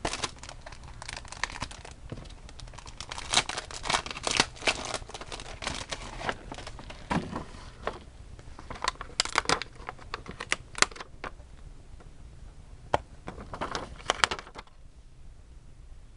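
Scrapbook paper pieces being handled on a worktable: irregular crinkling and rustling with small clicks and taps, quieter near the end.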